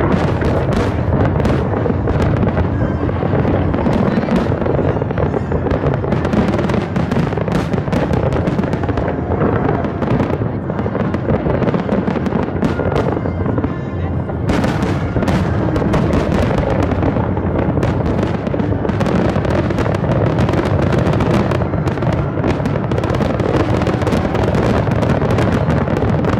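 Dense barrage of aerial firework shells bursting: a near-continuous rumble of booms and crackles that eases briefly about halfway through, then builds again.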